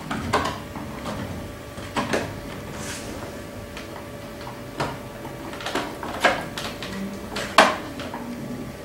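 Scattered sharp knocks and light clatters, about seven of them at irregular intervals and the loudest near the end, from a chinchilla hopping about on a tiled floor and onto a plastic bathroom scale.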